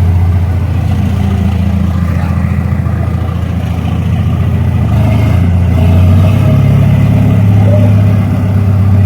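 A forklift engine running steadily under load while it tows a heavy fifth-wheel trailer. The engine note rises about six seconds in.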